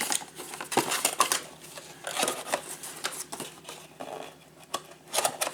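Trading-card Mega Box being unpacked by hand: irregular crinkling and rustling of cardboard and pack wrappers, with small knocks and clicks.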